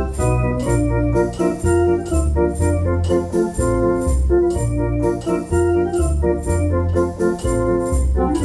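Eminent F217 electronic organ playing in the style of a Belgian Decap dance organ: sustained chords and melody over a bass line that steps to a new note about twice a second, with a steady beat of drum-like ticks.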